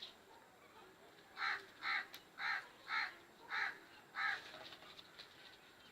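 A crow cawing six times in a quick, even series, about two caws a second.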